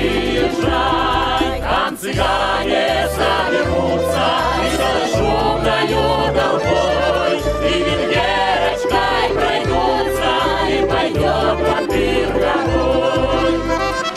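Russian gypsy-style folk song performed live: a choir singing over an accordion and string band with a regular bass rhythm.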